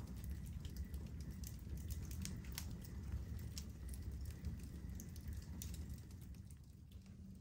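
Wood fire crackling in a fireplace: scattered, irregular sharp pops and snaps over a low steady rumble.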